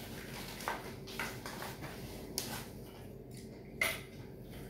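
A few light kitchen clicks and knocks, scattered and separate, the sharpest one near the end.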